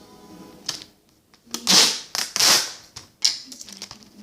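Duct tape being pulled off the roll in two rasping rips, each about half a second long, with a shorter rip before them and a sharp click near the end.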